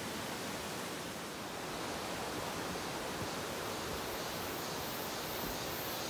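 Rushing water of a mountain stream: a steady, even rush.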